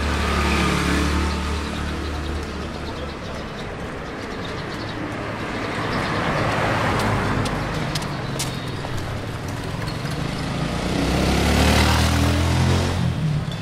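Street traffic: motor vehicles passing close by, with one engine going by near the start and a louder one near the end, and a rushing swell of road noise between them.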